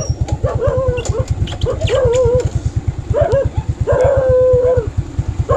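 A dog whining in a series of short, wavering calls, over a small engine running with a steady fast chug of about a dozen beats a second.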